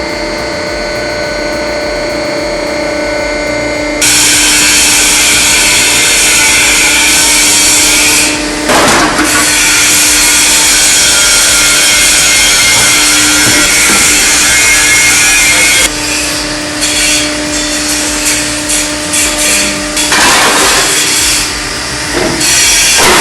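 Heavy industrial machine running with a steady hum, then, about four seconds in, suddenly loud with a harsh grinding and tearing noise as it works through material. After about sixteen seconds the noise turns uneven, surging and dipping.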